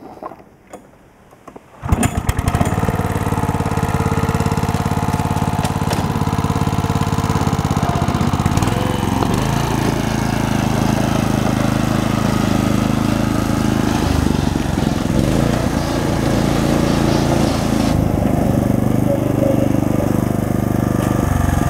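Small engine of a BCS walk-behind tractor starting about two seconds in, then running steadily as the tractor is driven with a power barrow cart; its low note shifts about eight seconds in.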